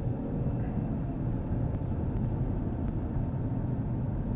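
Steady low road and engine rumble inside the cabin of a moving 2015 Ford Fusion. No seatbelt reminder chime sounds, even though the driver is unbelted.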